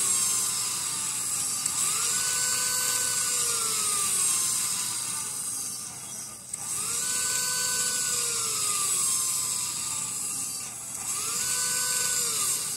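Synthesized brake sound from an MRC Sound and Power 7000 model-train controller, played through a loudspeaker: a steady air hiss with a squeal that rises, holds about a second, then glides slowly down, repeating every four to five seconds.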